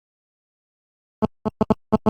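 Silence for about a second, then an LG Nexus 5 ringtone starts with a quick run of short, sharp electronic blips, about five in under a second.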